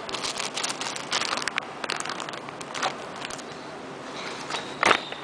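Clear plastic bags crinkling as small packaged squishy toys are handled and set down, a quick run of crackles that dies away, then one sharp click near the end.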